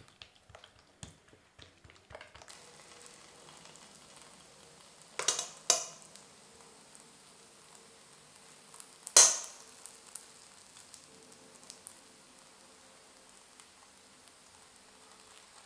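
A metal spoon clinks twice about five seconds in and once, loudest, about nine seconds in, while minced-meat filling is scooped onto dough, over a steady faint hiss. Before that there are soft handling sounds of oiled dough being pressed flat by hand on a wooden board.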